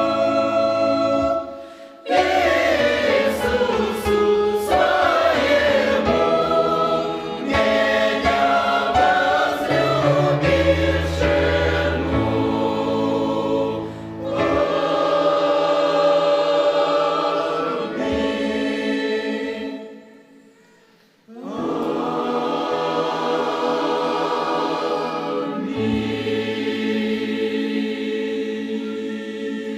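Church choir singing a Russian gospel hymn in sustained phrases, with two short breaks between phrases.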